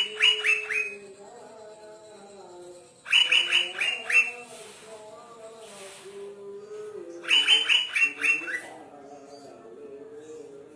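Asian fairy-bluebird (cucak biru) calling: three bursts of four to six quick, loud falling notes, about every four seconds. Underneath runs a softer, lower wavering whistle.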